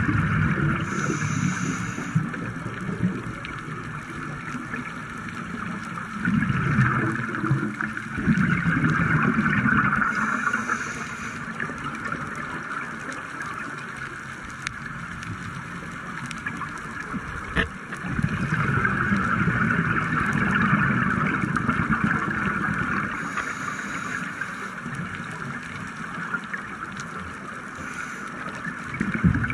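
Underwater ambience from a diver's camera: a scuba regulator's exhaled bubbles gurgle and rumble in two long surges, about a quarter of the way in and again past the middle, over a steady underwater hiss.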